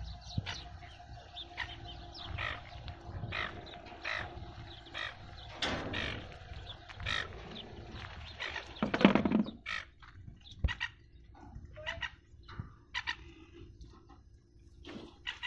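Birds calling: many short, irregular calls one after another, with a louder, lower call about nine seconds in.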